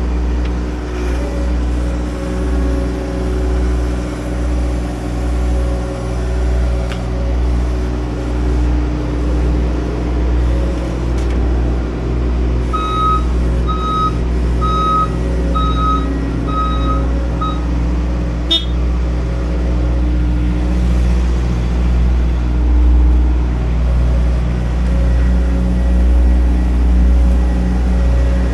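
Diesel engine running steadily with a pulsing low drone. About halfway through, a reversing alarm beeps six times, followed shortly by a single sharp click.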